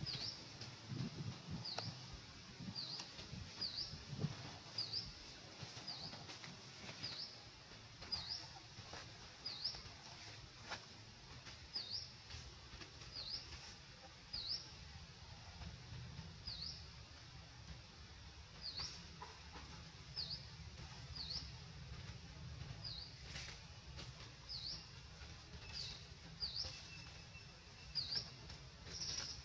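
A bird chirping repeatedly: short, high chirps about once a second, sometimes two close together, over a faint low rumble.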